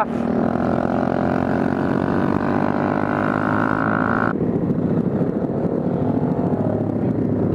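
Honda Grom's small single-cylinder engine running at steady speed on an open header with its muffler gone, a loud, raw exhaust note. A hiss over it cuts off abruptly a little past four seconds in.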